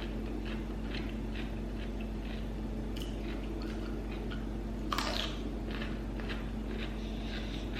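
A person chewing crunchy raw vegetables, crisp crunches about twice a second, with one louder bite about five seconds in. A steady low hum runs underneath.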